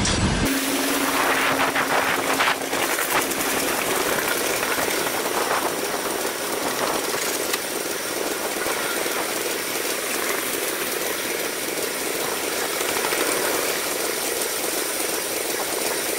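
Freight train of open gondola wagons rolling past, a steady rushing noise of wheels on rail with a few clicks in the first seconds. From about half a second in the sound is thin, with no low rumble.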